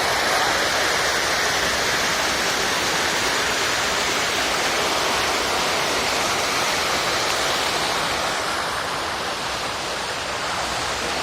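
Waterfall: falling water making a steady, loud rushing noise with no break.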